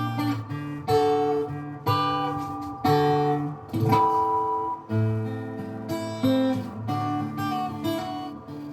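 Acoustic guitar playing an instrumental piece: chords strummed about once a second, each ringing out and fading, with single melody notes picked over them.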